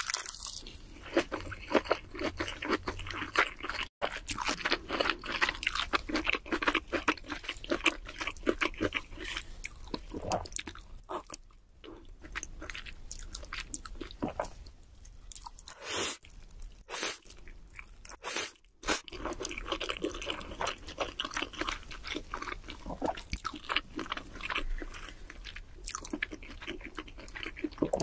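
Close-miked mukbang eating: a person chewing mouthfuls of food, with wet mouth sounds and crunchy bites, irregular and continuous.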